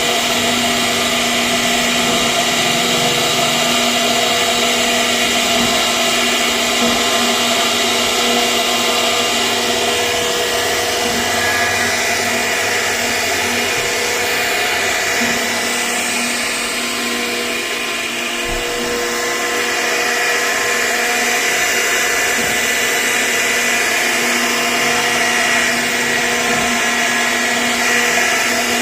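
CNC router spindle running steadily while carving wood: a continuous machine whine made of several steady tones over a hiss, shifting slightly in the upper range partway through.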